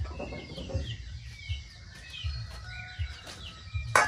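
Small birds chirping and twittering throughout, with chickens clucking in the background. A single sharp knock sounds near the end, followed by a brief ringing tone.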